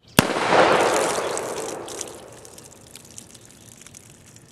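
A single shot from the EMF Pony Express, a Pietta-built single-action revolver firing .38 Special: a sharp crack followed by a long rumble that fades over about two seconds, with a few faint ticks after.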